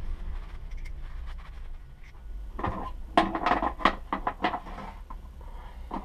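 Small metal fork parts and hand tools being handled and set down: a quick run of clinks and knocks in the middle, over a steady low hum.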